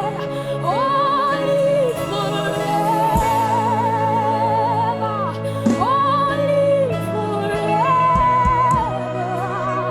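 Live gospel worship music: a singer holds long, wavering notes, sliding up into each one, over sustained keyboard chords.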